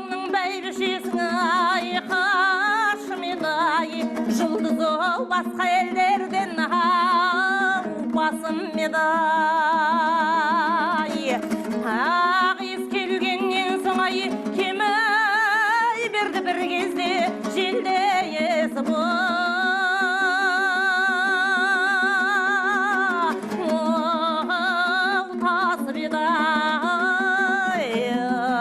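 A Kazakh folk song sung with strong vibrato on long held notes, over a steady plucked-string accompaniment, typically a dombra.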